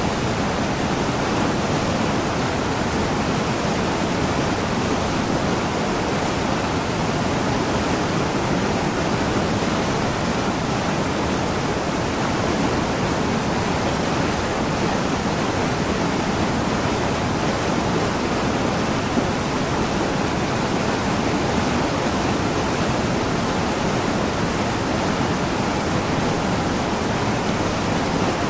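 Mountain stream cascading over boulders in a small waterfall: a steady, even rush of water.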